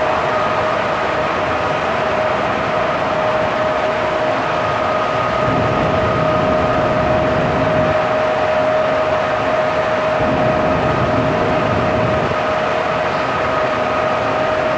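Steady rushing noise with a constant mid-pitched hum, unchanging throughout: the running machinery of a cruise ship heard on deck.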